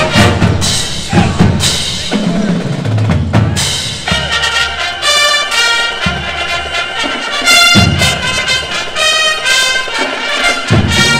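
Marching band playing live, with a drumline and brass: snare and bass drum strokes, and full brass chords that come in strongly about four seconds in.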